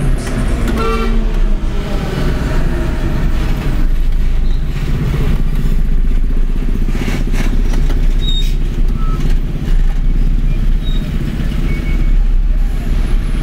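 Steady low rumble of a vehicle driving along a busy road, engine and road noise, with other traffic around it.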